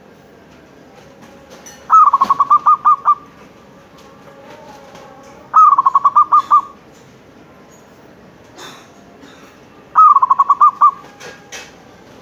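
Zebra dove (perkutut) cooing three times, a few seconds apart. Each call is a quick stuttering run of short notes lasting about a second.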